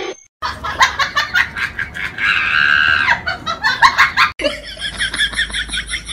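A person laughing hard in repeated bursts, with a drawn-out high note in the middle. About four seconds in it cuts off sharply, and a quicker, even run of short pulses follows.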